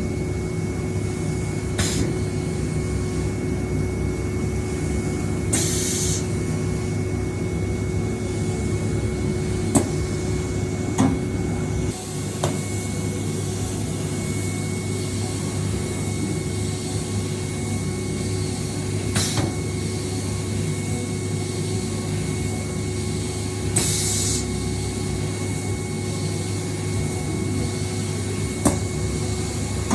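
CNC milling machine running steadily, its spindle giving a constant hum with a thin high whine. Two short hisses, about 6 and 24 seconds in, and a few sharp clicks break through.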